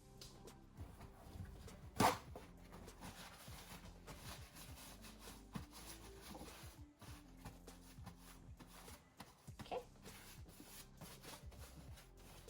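Quiet handling knocks and small clicks, with a sharp knock about two seconds in and a smaller one near the end, over faint background music.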